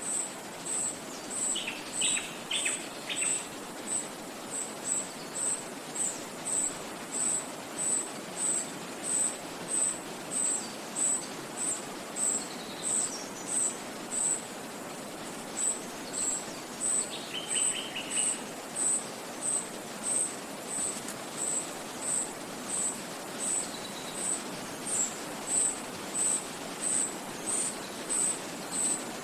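Forest ambience: a steady rush of wind in the trees and a stream under a high, even chirp that repeats about twice a second. Birds call briefly, about two seconds in and again near the middle.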